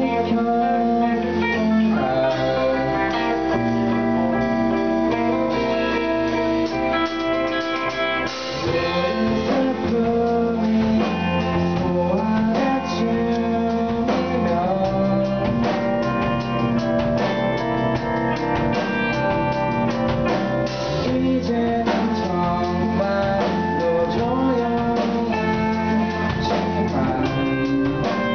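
Small rock band playing live: electric guitar, bass guitar and drum kit, with a singer's voice over them.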